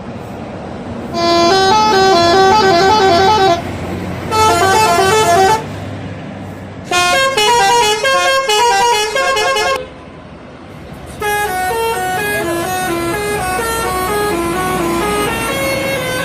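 Bus telolet horn playing quick, melodic runs of stepping notes in four phrases with short breaks between, the last phrase running on to the end; a bus engine runs underneath.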